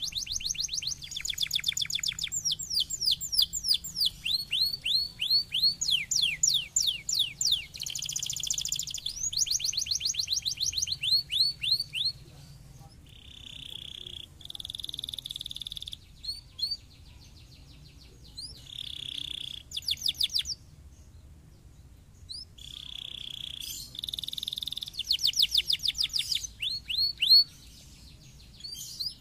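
Domestic canary singing: fast runs of repeated high notes, each sweeping downward, alternating with short held buzzy trills, with a brief pause about two-thirds of the way through.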